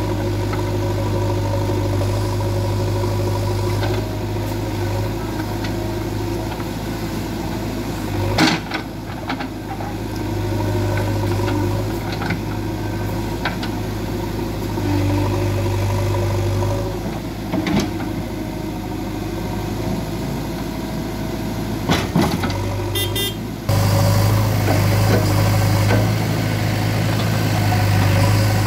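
JCB 3DX backhoe loader's diesel engine running steadily, with a few sharp knocks along the way. The engine gets louder near the end.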